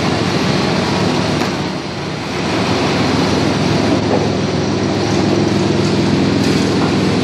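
Spindleless rotary veneer peeling lathe running, a loud steady machine noise with a motor hum. It dips briefly about two seconds in, then runs steady with a humming tone.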